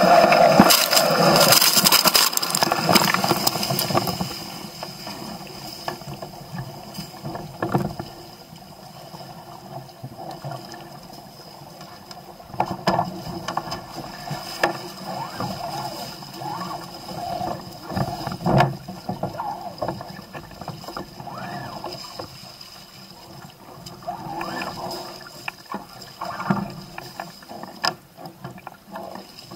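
Musto Skiff sailing dinghy moving through the water: water rushing and splashing along the hull. It is loudest in the first four seconds, then quieter, with a few sharp knocks.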